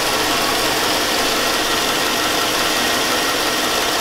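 2002 Chevy Avalanche 5.3L Vortec V8 idling steadily with a knock in it, which the owner says could be lifters but sure sounds like a rod.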